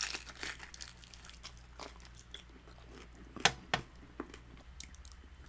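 Close-up mouth sounds of someone biting and chewing birria tacos: irregular wet, crunchy clicks, with two louder bites about three and a half seconds in.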